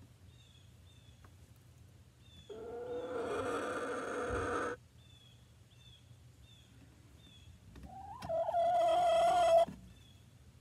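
A hen in a nesting box giving two long, drawn-out calls, the second one louder and rising in pitch before it holds.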